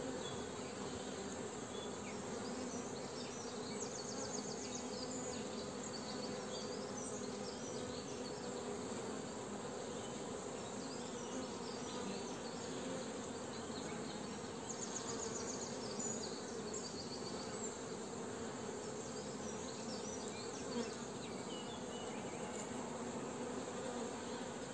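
Honeybees buzzing steadily in an open mini-plus mating nuc, a continuous hum from the bees on the lifted frames.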